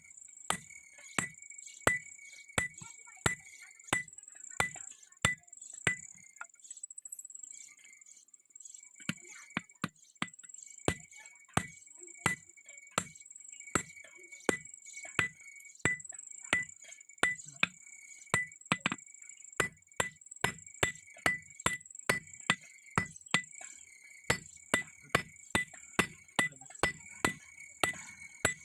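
Blacksmith's hand hammer striking hot steel on an anvil in a steady rhythm of about one and a half to two blows a second, with the anvil ringing between blows. The hammering stops for about three seconds roughly six seconds in, then resumes.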